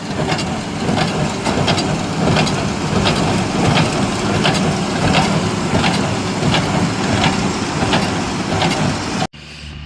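New Holland 570 small square baler running in straw, its plunger knocking steadily about every two-thirds of a second as it packs bales, over the steady running of the tractor engine. Near the end the sound cuts off abruptly to a quieter steady engine hum.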